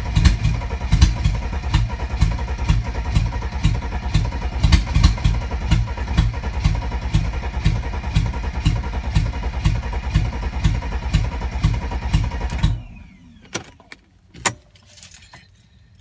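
Mercedes 300TE's straight-six turning over on the starter with an open exhaust (no catalytic converter or muffler), in a steady beat of pulses. It does not catch, and the cranking cuts off about thirteen seconds in, followed by a couple of faint clicks. The owner takes the failure to start for inconsistent spark, or for fuel reaching only some of the injectors.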